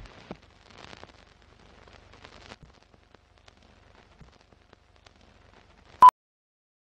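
Film countdown leader sound: faint crackle with scattered clicks, like old film running, then a single short, loud beep about six seconds in, the countdown's sync beep.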